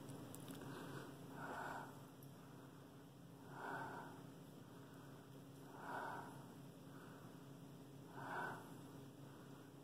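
Faint breathing close to the microphone: four soft nasal breaths, one about every two to two and a half seconds.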